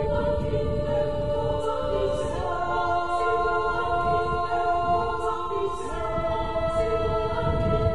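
Background music of sustained choir-like voices holding chords, which shift about two and a half seconds in and again near six seconds.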